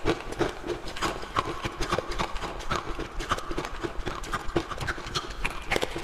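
Ice being bitten and chewed close to the microphone: a rapid, irregular run of sharp crunching cracks, several a second.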